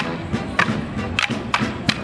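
Morris dancers' wooden sticks clacking together in time, about five sharp strikes roughly every half second, over live dance music from a band with a drum and brass.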